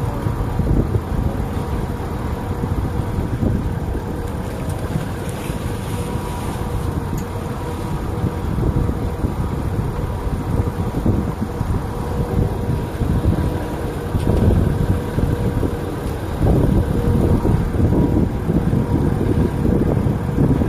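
Wind buffeting the microphone in uneven gusts, with a faint steady engine hum underneath.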